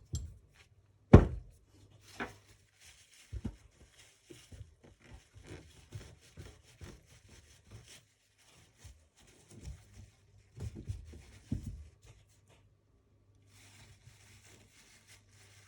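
Small engine parts and tools being handled and set down on a workbench: scattered clicks and knocks, the loudest a sharp knock about a second in, with light rubbing and rustling between them.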